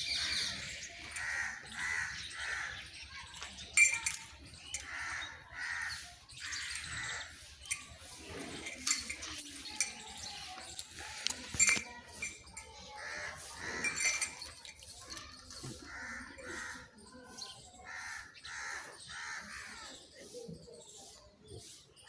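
Birds calling over and over, about one short call a second, with a few sharp clicks in the middle.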